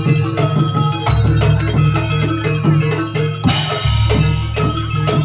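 Banyuwangi jaranan gamelan music: metal-keyed percussion plays a repeating melody over drums and a deep, sustained gong bass. A bright crash rings out and fades about three and a half seconds in.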